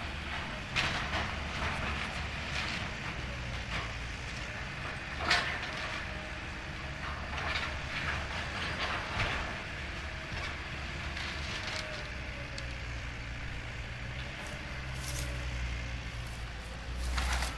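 Demolition machinery running with a steady low engine hum and a faint wavering whine, while debris cracks and knocks at scattered moments, the loudest crack about five seconds in.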